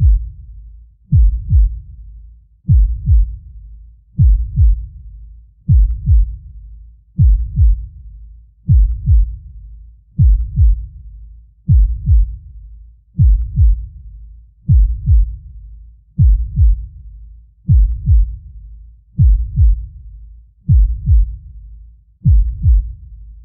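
Deep heartbeat sound effect: a slow, steady lub-dub, two low thumps close together about once every second and a half.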